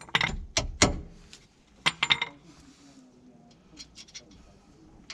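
Hammer blows on the steel front suspension of a car: a quick run of sharp metallic knocks in the first couple of seconds, then a few light metal clicks as parts are handled.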